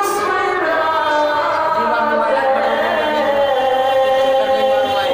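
A man singing a naat, an Islamic devotional song, unaccompanied into a microphone, with long, slowly wavering held notes.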